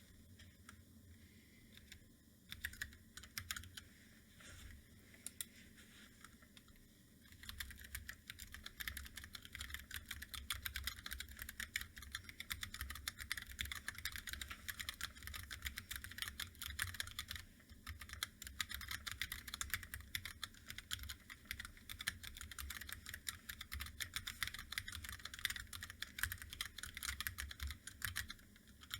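Typing on a Corne split mechanical keyboard with Hako True switches and SA-profile keycaps: a few scattered keystrokes at first, then steady, fast typing from about seven seconds in.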